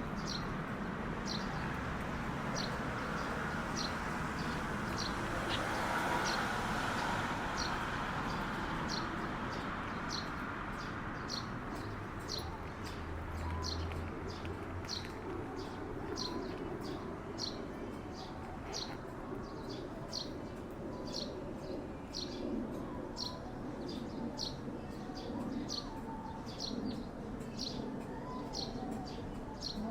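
Eurasian tree sparrow chirping over and over, a short falling chirp a little more than once a second, over a steady low background rumble.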